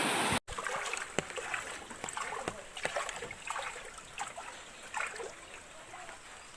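Rushing floodwater that cuts off abruptly about half a second in. After it come quieter, scattered small splashes and drips of water.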